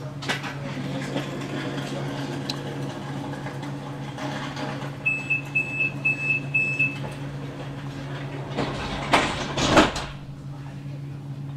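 Steady low hum of a tram's electrical equipment, heard on board. About five seconds in come five short high beeps in quick succession, and about nine seconds in a louder noisy burst.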